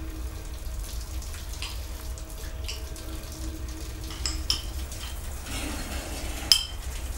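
Dishes and utensils clinking and knocking, with a few sharp ringing clinks; the loudest comes near the end. A steady low hum runs underneath.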